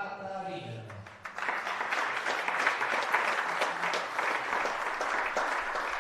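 Audience applauding, starting about a second in and carrying on steadily as many quick claps.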